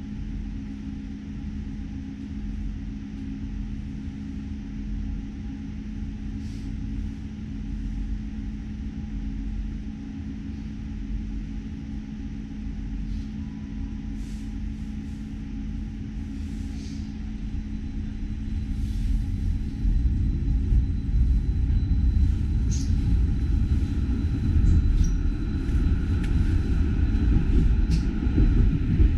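Light-rail tram heard from inside the car: a steady low hum while it stands. About two-thirds of the way through the rumble grows louder and a rising whine comes in as the tram pulls away and picks up speed.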